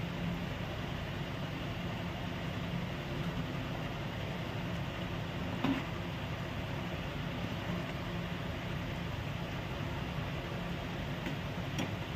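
Steady low mechanical hum with an even hiss, and a single light clink of the metal spatula against the pan about six seconds in.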